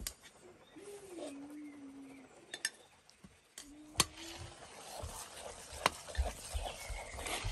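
Clinks of metal kitchenware: a metal sieve shaken and tapped over a metal mixing bowl, then a metal spoon clinking against a ceramic mug, with the sharpest clink about four seconds in. A short animal call, falling then held, sounds about a second in.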